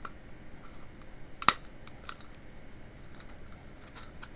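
A hand tool clicking and tapping against the plastic lamp housing as it is pried apart, with one sharp, loud click about a second and a half in.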